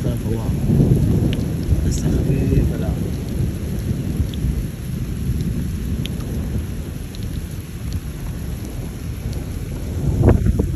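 Thunderstorm: steady heavy rain under a low rolling rumble that swells near the start and again near the end, with scattered sharp ticks of drops striking.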